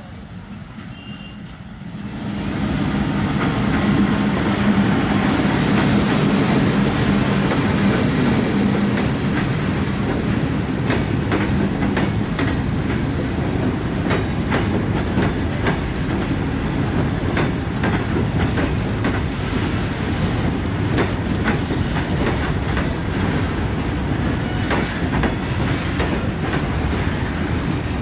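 Empty freight train of BCNA covered wagons rolling past close by, wheels clattering over the rail joints in a steady stream of knocks. It comes in loud about two seconds in and keeps going.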